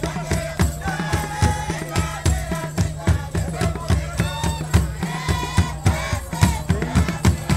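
Music with a fast, steady drum beat, rattles and group singing.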